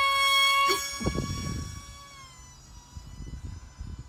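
Small radio-controlled F-22 model plane's electric motor and propeller whining steadily at full throttle after launch. About two seconds in the pitch drops a little and the whine fades as the plane flies off, with a brief low rumble about a second in.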